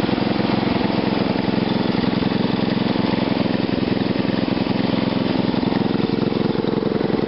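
Small single-cylinder air-cooled engine running steadily on a GEET fuel-processor reactor fed by an RC carburetor, its firing pulses even and unchanging.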